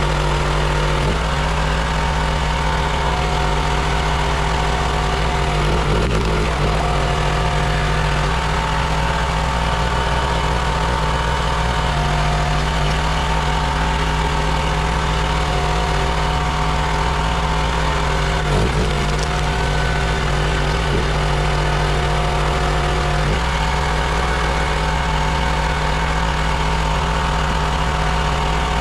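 Gas engine of a Country Line 32-ton log splitter running steadily, driving its hydraulic pump, its note changing slightly a few times.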